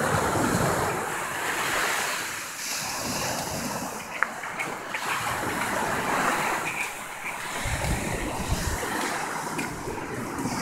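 Ocean surf washing up the beach in swells that rise and fall every couple of seconds. Wind buffets the microphone with a low rumble about eight seconds in, and there are a few small clicks.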